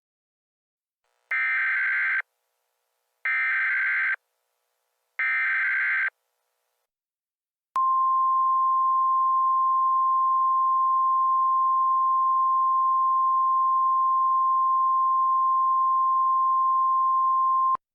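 Emergency Alert System tones: three short SAME header data bursts, each just under a second and about two seconds apart, then the steady EAS attention tone held for about ten seconds, cutting off abruptly near the end. Together they signal the start of an emergency alert broadcast.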